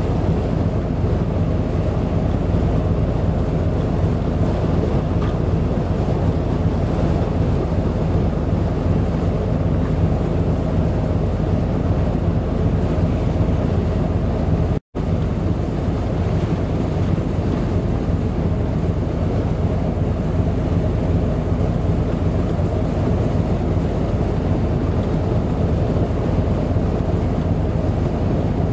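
Strong wind buffeting the microphone, a steady low rumble, over the wash of a choppy, whitecapped sea. The sound cuts out for a split second about halfway through.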